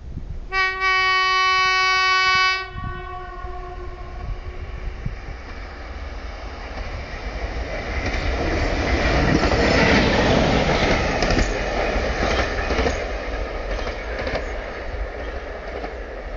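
PKP ET22 electric locomotive running light gives one long horn blast of about two seconds on a single steady note, the Rp1 'attention' signal. It then approaches and passes, its wheels clattering over the track; the rumble is loudest about ten seconds in and eases off after.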